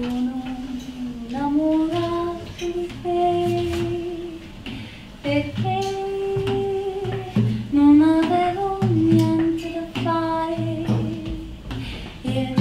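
A woman sings a slow melody with long held notes that glide between pitches. Acoustic guitar and accordion accompany her over a steady low pulse.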